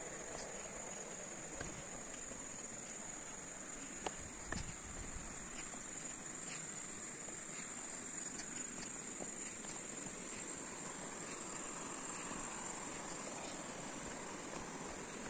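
Insects chirring in one steady, high-pitched drone from the surrounding grass, over the low rustle of footsteps on a dirt trail, with a couple of short knocks about four seconds in.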